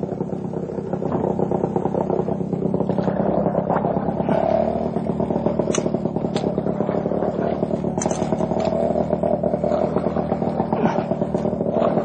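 An engine running steadily at fairly high revs, with a few sharp clatters or knocks over it about six and eight seconds in.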